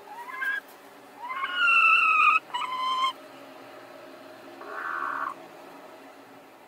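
Hens squawking in a shared nest box as two of them vie for the same nest: three pitched calls in the first three seconds, the middle one loudest and longest, then a brief hoarse rasp about five seconds in.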